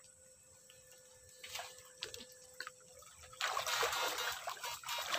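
Shallow stream water disturbed by someone wading: a few small splashes, then from about three and a half seconds in a steady, louder sloshing and swishing of water.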